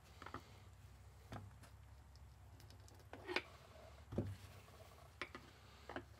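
Scattered light clicks and knocks of a fuel injection control module (FICM) being handled and turned over on a shop rag, about six of them, over a faint steady low hum.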